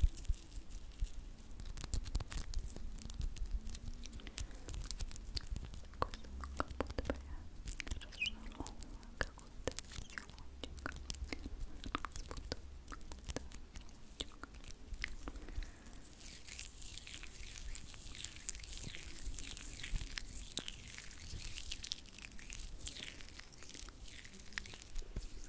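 Close-miked hands rubbing and squeezing together with a cosmetic product, giving a steady stream of small sticky clicks and crackles. About two-thirds of the way in, a soft fizzing hiss joins them.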